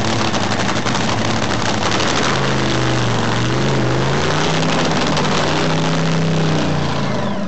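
Top fuel dragster's supercharged nitromethane-burning V8 running during a pit warm-up. It is loud and crackling, and is revved up and down a couple of times on the throttle.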